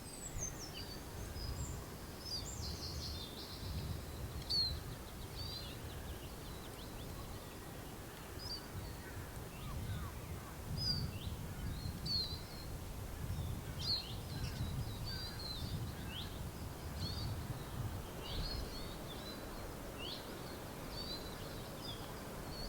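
Woodland songbirds singing and calling, with many short high chirps and trills throughout, over a steady low rumble.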